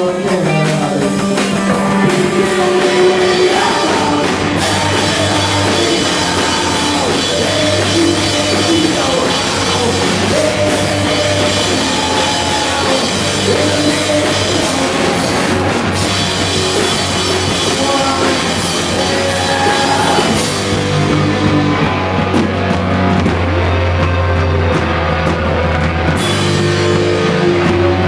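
Grunge band playing loudly live, with drum kit and guitars, in a rough, poor-quality recording. The high end thins out for a few seconds near the end, then comes back.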